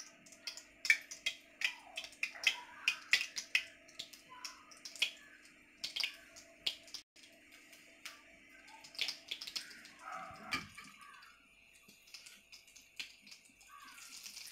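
Oat-coated bitter gourd and potato balls frying in hot oil: rapid sharp crackles and pops of spitting oil, thinning out after about ten seconds. A faint steady hum underneath stops about ten seconds in.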